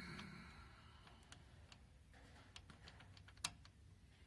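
Near silence with faint scattered clicks and taps from small metal parts being handled, the loudest about three and a half seconds in. A faint ringing tone dies away over the first second.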